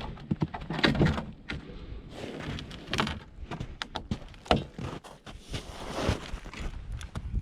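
Irregular knocks and thuds, several in quick succession, with scraping and rustling in between.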